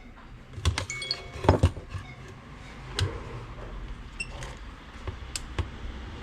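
Scattered light knocks and metallic clinks, about half a dozen over several seconds, the loudest cluster about one and a half seconds in, over a low steady hum.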